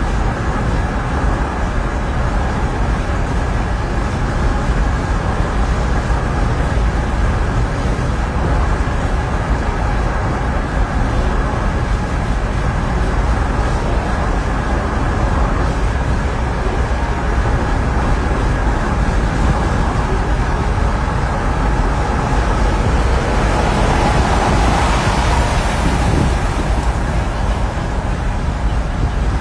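Steady road and engine noise inside a moving car, with a low rumble; a louder, hissier swell rises and falls about three-quarters of the way through, like a vehicle passing.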